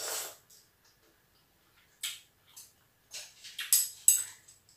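A short slurp of soup noodles drawn in off chopsticks, followed about two seconds later by a run of short, sharp mouth clicks and smacks while eating.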